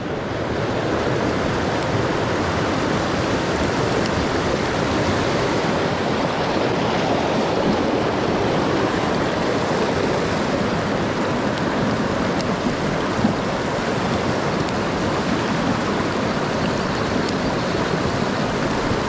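Mountain stream rushing steadily over rocks, one even wash of water, with a single short tap about two-thirds of the way through.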